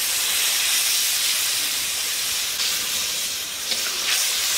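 Hot spice paste in a metal pan sizzling and hissing hard as cold coconut milk is poured in, a steady hiss that jumps up at the start and eases off slightly near the end.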